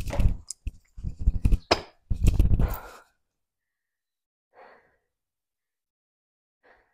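Thuds and scuffs of hands and sneakers landing on a hard floor during burpees, mixed with heavy breathing, stopping about three seconds in. Then two short, faint breaths out.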